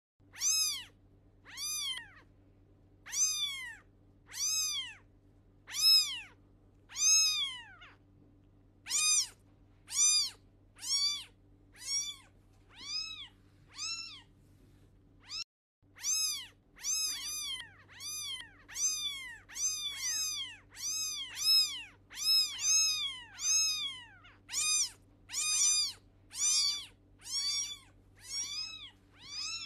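Kittens mewing over and over, high thin mews that each rise and fall in pitch, about one a second and coming faster in the second half, with a short break about halfway through. A faint steady hum runs underneath.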